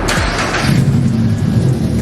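Turbocharged 2022 Subaru BRZ's 2.4-litre flat-four engine running at a low, steady pitch, after a brief rush of noise at the start.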